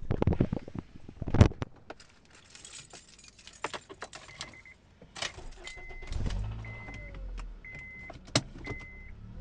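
Keys and door handling clicks and knocks in a Honda Accord, then the engine starts and runs with a low, steady hum from about six seconds in. The car's warning chime beeps about once a second.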